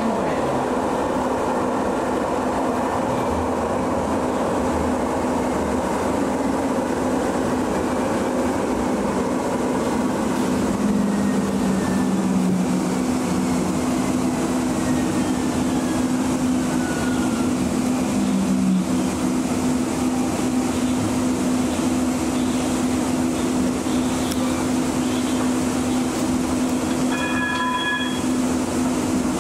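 Muni Metro light rail vehicle running on its tracks, heard from inside the cab: a steady motor hum over continuous wheel and rolling noise, with a faint whine that falls in pitch midway. Near the end a short ringing chime sounds about three times.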